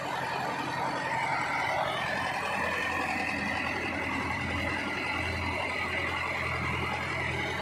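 Tractor diesel engine running steadily, holding its speed, while hitched to a raised tipping silage trailer.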